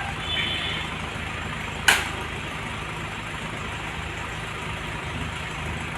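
Steady low hum of an idling engine, with one sharp crack about two seconds in.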